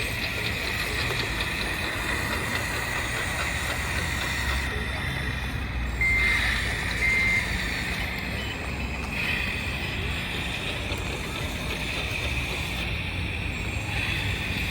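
Scale RC construction machines, a Liebherr LR636 tracked loader and a TA230 dump truck, running with a steady high motor whine over a low rumble. About six seconds in come two short electronic beeps, about a second apart, like a reversing alarm.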